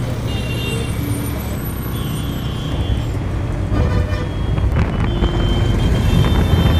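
Riding a motor scooter through road traffic: a steady low engine and road rumble, with short high horn toots from passing vehicles.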